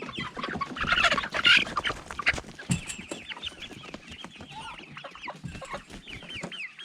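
Chickens clucking and calling, with many short, high, falling peeps repeated throughout and a louder flurry of calls about a second in.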